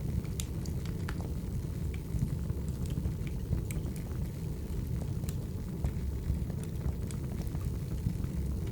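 Wood fire burning: a steady low rumble of the flames with scattered sharp crackles and pops from the logs, about one or two a second.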